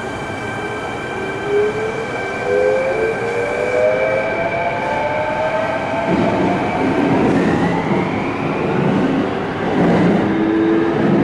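Electric commuter train heard from inside the passenger car: the traction motor whine rises steadily in pitch as the train picks up speed. From about six seconds in, a running rumble from the wheels on the rails grows louder beneath it.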